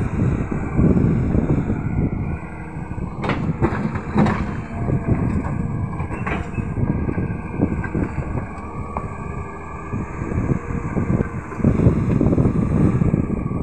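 CAT hydraulic crawler excavator's diesel engine running under load as the boom and bucket work, its level rising and falling. A few sharp knocks come about three to four seconds in and again near six seconds.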